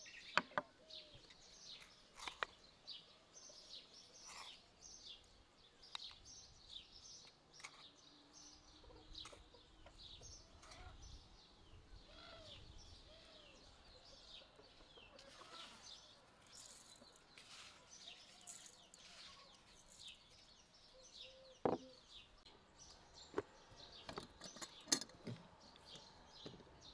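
Small birds chirping over and over, with a few clucking calls like hens'. A few sharp clicks and taps sound near the end.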